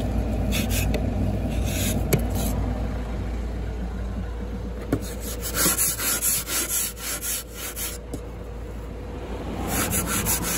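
A plastic ice scraper is scraping frost off a car window in repeated short rasping strokes.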